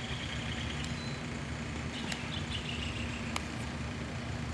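Outdoor background of a steady low rumble with a constant low hum, like distant traffic or machinery. Faint bird chirps sound over it, and there are a couple of sharp taps about two and three seconds in.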